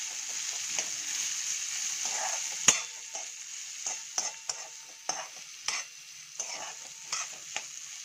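Freshly added chopped onions sizzling in hot tempering oil in a metal kadhai while a steel spoon stirs and scrapes them, with repeated scrapes and clinks against the pan. A sharp knock of the spoon on the pan comes a little before three seconds in, after which the sizzle is quieter.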